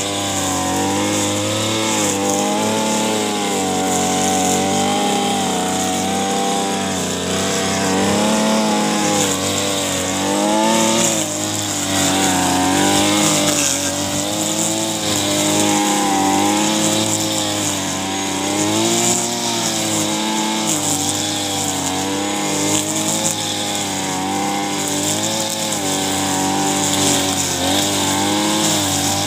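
Backpack brush cutter's small petrol engine running at high speed while its cutting head mows tall grass. The engine pitch wavers up and down every second or two as the head meets and clears the grass.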